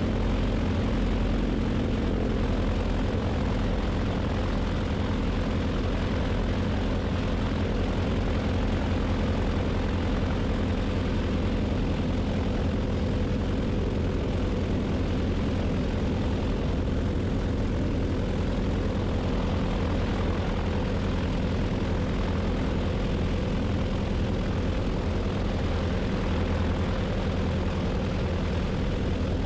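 Twin radial engines and propellers of a Beech 18 droning steadily in flight, with no change in pitch or level.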